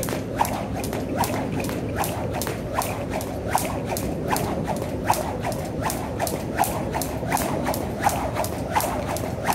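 A jump rope slapping the floor in a steady, quick rhythm of about three strikes a second, over a steady low background noise.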